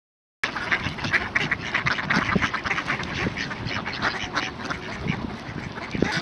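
Ducks quacking, many short calls overlapping rapidly and without pause from a group of several birds.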